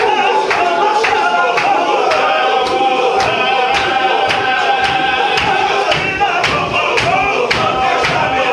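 Chechen Sufi zikr: a crowd of men chanting together in unison, with a sharp stamped beat about three times a second from the circling worshippers.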